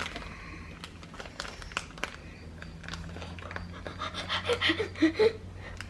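A child breathing hard in short pants, with scattered small crinkles and clicks from handling a plastic packet; the breaths come in a louder cluster about four to five seconds in.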